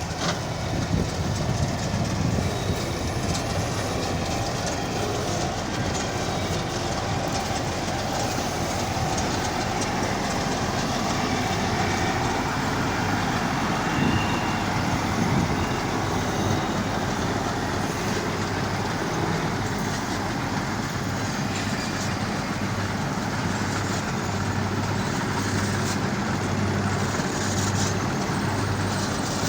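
Combine harvester running steadily while harvesting corn: a continuous heavy engine note under a dense rattle and rush of machinery.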